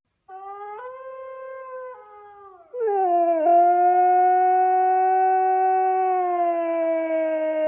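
Dog howling: a softer howl starting just after the beginning, then about halfway through a long, loud howl held on one pitch that slowly sinks.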